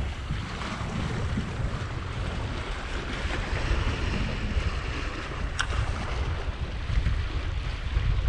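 Small waves washing and splashing against the boulders of a rock jetty, with wind rumbling on the microphone. A single short click a little over halfway through.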